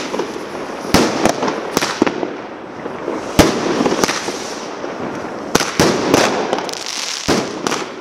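Aerial fireworks bursting overhead: about a dozen sharp bangs at irregular intervals, some close together, over a continuous noisy hiss between them.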